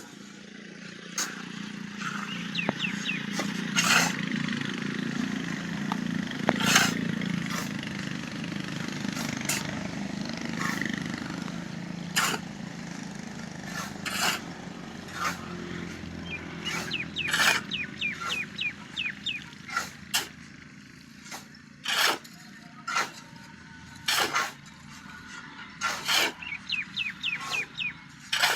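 Concrete block factory work: a machine runs with a low hum that fades about halfway through, while sharp metal clanks and knocks go on throughout and come faster near the end. Short high chirps are heard twice.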